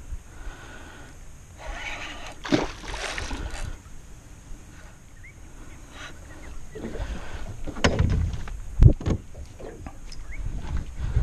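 Handling noises of fishing from a small boat: rustling and scraping of rod and gear against the hull, with a scuffle of hiss about two to three seconds in and sharp knocks around eight and nine seconds in, the second the loudest.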